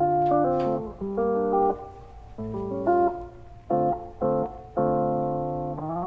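Instrumental background music: plucked guitar chords in short phrases, each group of notes struck and fading.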